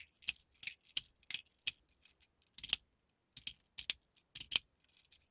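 Plastic Gao spinner slider fidget clicking as it is handled and slid: about a dozen sharp clicks at an uneven pace, with a short pause about two seconds in.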